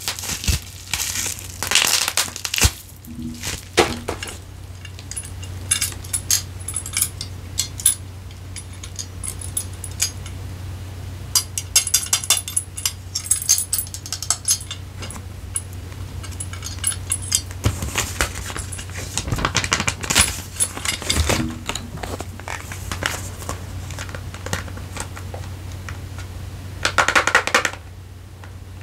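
Close-miked handling of a camera and its packaging: irregular flurries of small clicks, taps and light crinkling, with a louder rustle near the end and a steady low hum underneath.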